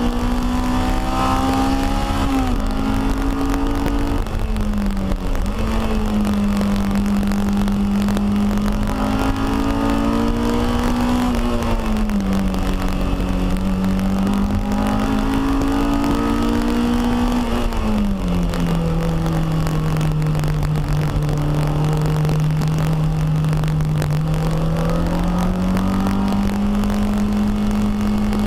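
Honda K20 inline-four engine in a Toyota MR2 Spyder race car, heard from inside the cabin at track pace. Revs climb and then drop sharply several times through gear changes and braking, hold lower for several seconds in the second half, and climb again near the end, over steady road and tyre noise.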